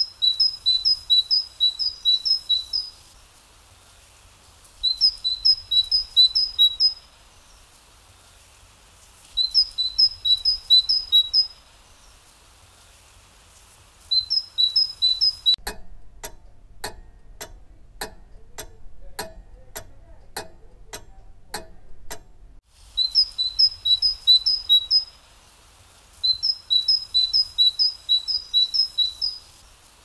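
Great tit singing: a two-note phrase, high then lower, repeated quickly six or seven times in bursts of about two seconds, with pauses of a second or two between bursts. For about seven seconds in the middle the song stops and a run of sharp, regular ticks comes instead, about two a second.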